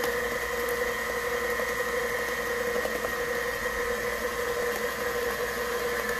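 KitchenAid Professional 5 stand mixer running steadily at a raised speed, its flat beater mixing a thickening rice-flour batter; an even motor whine that holds one pitch.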